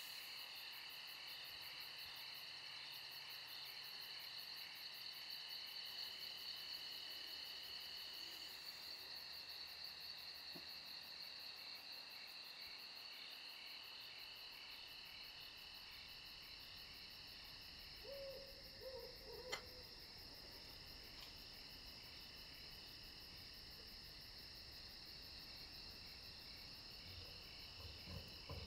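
Faint steady high-pitched chirring of insects, with a short creak and a sharp click about two-thirds of the way through and a few soft knocks near the end.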